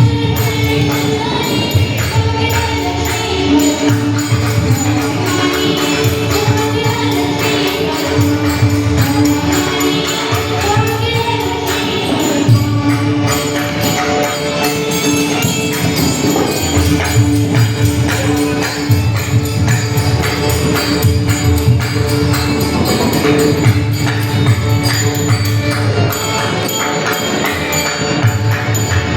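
Warkari devotional bhajan music: many small hand cymbals (taal) clashing in a fast, steady rhythm over a pulsing drum and steady held drone notes, with voices singing together.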